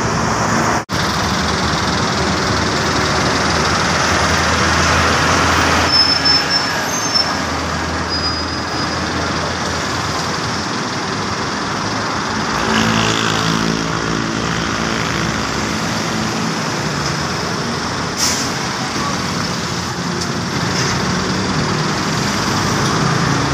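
Roadway traffic with a bus's diesel engine running close by, its low drone strongest about halfway through. Brief high squeals come several seconds in, and a short sharp hiss comes about three-quarters of the way through.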